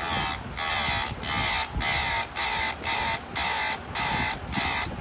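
Sharpening file scraping across the cutters of a Stihl 026 chainsaw chain in even strokes, about two a second: the chain being sharpened.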